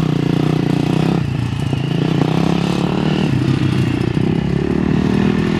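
Dirt bike engines running as a rider pulls away on a small dirt bike, with a second bike circling farther off.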